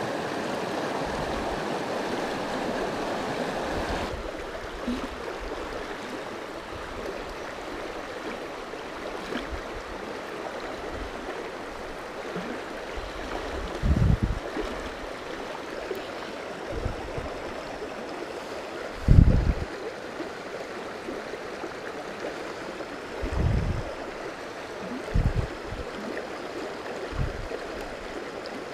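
Small mountain creek running over rocks and riffles: a steady rush of water, a little louder for the first four seconds. A few short low thumps near the mic come partway through.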